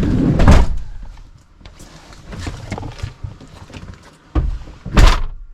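Dog sniffing and breathing close to the microphone, with two loud bursts, one about half a second in and one near the end.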